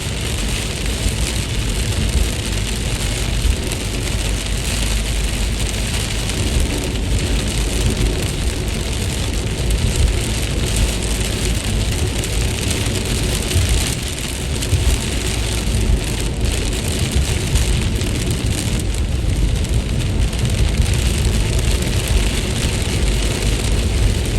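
Steady rain falling, an even hiss with no let-up, over a constant low rumble.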